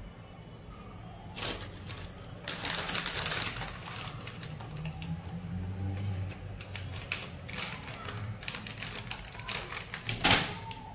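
Deflated rubber balloons being handled and laid on a tiled floor: rubbery rustling and light taps in irregular spurts, with a louder crinkle near the end.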